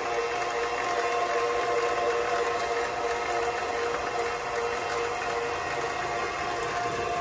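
KitchenAid Professional 5 stand mixer running a Kenome metal meat-grinder attachment, a steady motor-and-gear whine as the auger grinds raw pork.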